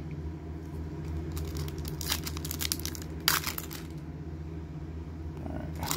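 Foil wrapper of a Panini Prizm trading-card pack crinkling as it is picked up and handled: a few short rustles, the sharpest about three seconds in, over a steady low hum.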